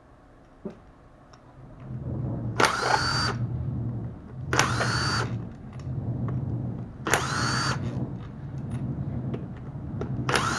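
Power impact gun undoing the gearbox casing bolts in four short bursts, each with a quickly rising whine, over a steady low hum that starts about two seconds in.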